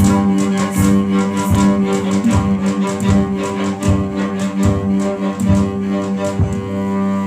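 A string ensemble of violins, cellos, double bass and guitars playing a held chord over a steady beat, one stroke about every three quarters of a second. The beat stops about six and a half seconds in and the chord keeps sounding.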